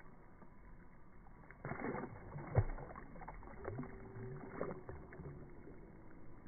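Slowed-down, deep-pitched water splashing from a small pond fish hooked under a bobber and thrashing at the surface. The splashing starts a little under two seconds in, with its sharpest slap just after and another burst at about four and a half seconds.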